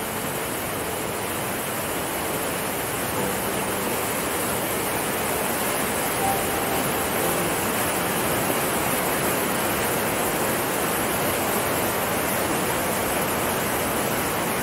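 A fast mountain stream rushing steadily over boulders as white water.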